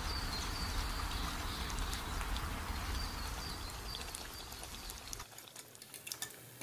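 Steady rain falling, with a low rumble underneath, cutting off abruptly about five seconds in. After that, a quieter stretch of scattered faint crackles and clicks from the bread rolls frying in hot oil.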